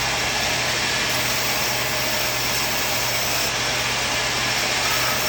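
Sawmill machine running steadily: an even mechanical noise with a low hum and a faint high whine, unchanging throughout.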